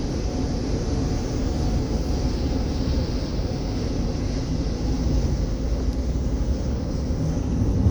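Steady road and engine noise of a car travelling at freeway speed, a continuous low rumble with tyre and wind hiss.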